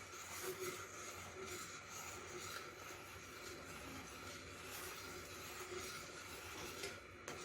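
Faint steady hiss of a small pot of macaroni cooking on the stove, with a few light taps as it is stirred.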